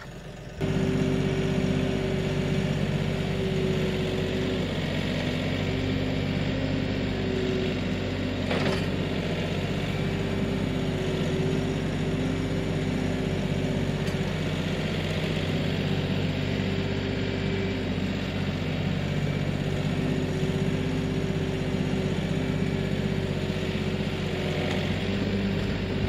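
Kioti NX6010 tractor's diesel engine running steadily under load while the tractor pushes against a large locust tree, with one short sharp knock about eight and a half seconds in. The engine comes in suddenly about half a second in.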